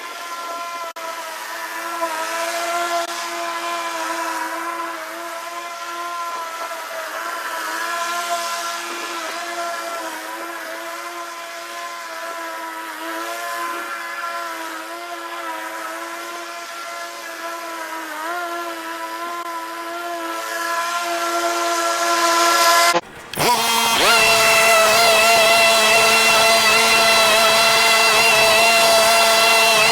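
25-inch YBravo walk-behind gas mower engine running steadily under mowing load. The sound breaks off briefly about 23 seconds in and comes back louder.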